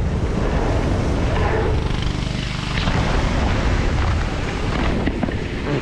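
Wind rushing over a GoPro's microphone during a mountain bike run down a drop and kicker, over the steady drone of the generator that powers the jump airbag.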